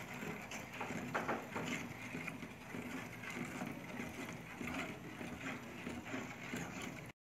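Wooden spoon stirring thick chocolate syrup in a metal pot on the stove: a continuous soft scraping and sloshing of the spoon against the pot and through the liquid. It cuts off abruptly near the end.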